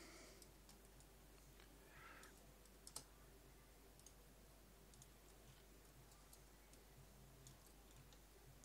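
Near silence: room tone with a few faint computer mouse clicks, the clearest about three seconds in.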